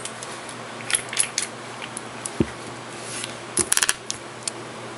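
Light clicks and taps from handling a glass nail polish bottle and its plastic cap, with a dull thump a little before halfway and a quick run of sharp clicks about three and a half seconds in.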